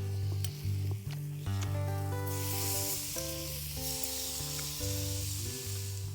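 Background music with held bass and chord notes starts, and a steady high hiss like sizzling joins about two seconds in.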